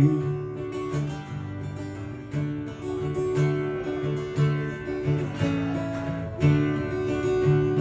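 Steel-string acoustic guitar strummed alone in a steady country-folk rhythm, an instrumental break between sung verses.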